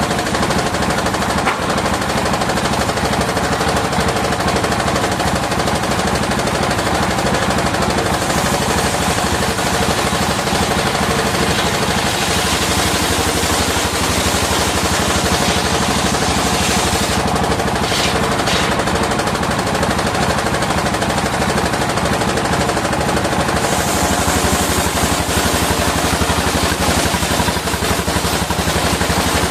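Engine-driven circular sawmill running steadily. The engine fires in a rapid, even beat under the saw noise, and the sound shifts slightly about two thirds of the way in.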